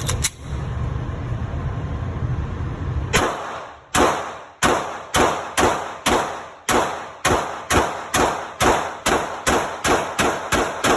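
Glock semi-automatic pistol fired in a long string of shots on an indoor range. The shots start about three seconds in at roughly two a second and quicken to about three a second, each with a short echo. A steady ventilation rumble fills the first few seconds.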